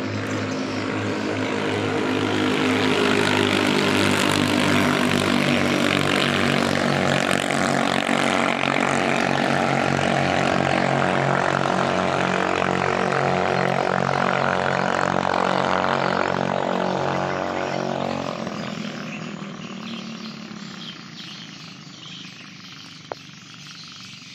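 Ketinting longtail boat's small single-cylinder engine running hard. It grows louder over the first few seconds, holds steady, then fades away over the last several seconds as it moves off, with one sharp click near the end.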